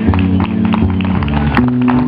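Live rock band playing without vocals: sustained bass and guitar or synthesizer notes that change every half second or so, over a steady run of drum and cymbal hits.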